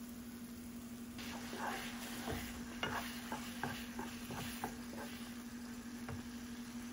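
Wooden spatula stirring semolina halwa in a nonstick wok as the wet sugar-and-ghee mixture sizzles, with a quick run of strokes against the pan starting about a second in and easing off near the end. A steady low hum runs underneath.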